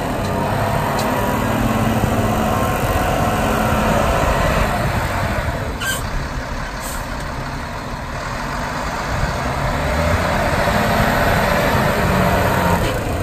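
Volvo A30E articulated dump truck's six-cylinder diesel engine running hard under throttle as the truck drives. It eases off and grows quieter for a couple of seconds partway through, then comes back up louder near the end.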